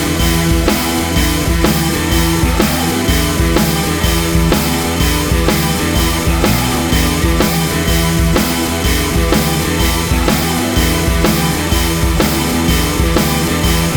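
Background music: an instrumental track with a steady driving drum beat and guitar.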